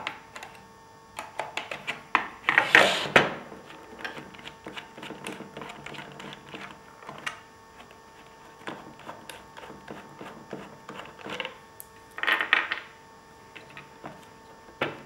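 Scattered clicks and light metal clinks of an Allen key working the 5 mm Allen-headed bolts out of a small clear plastic turbine case and of small parts handled on a wooden table, with two louder, longer rattling scrapes, about three seconds in and again about twelve seconds in.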